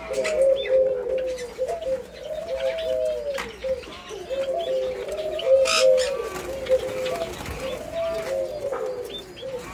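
Several doves cooing over one another, each coo a rising-then-falling note, one after another without a break. A brief sharp scratchy noise cuts in about halfway through.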